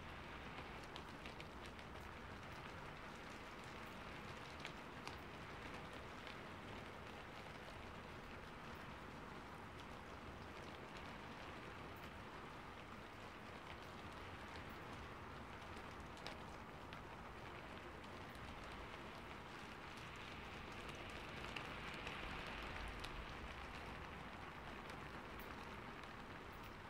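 Steady light rain: a soft hiss with scattered drops ticking. The hiss swells briefly about three-quarters of the way in.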